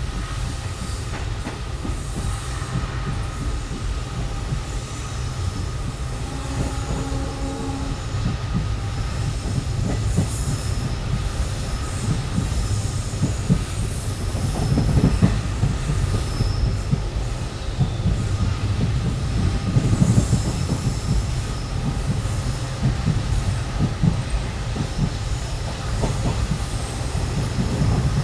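Passenger train running along the track, heard from on board: a steady low rumble with wheels knocking over rail joints and some thin, high wheel squeal. The knocks are loudest about halfway through.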